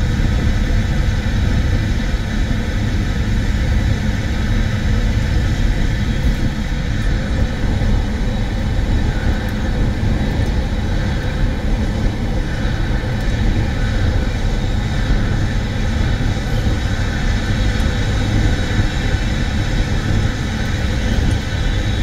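Car driving at motorway speed: a steady rumble of tyre, wind and engine noise.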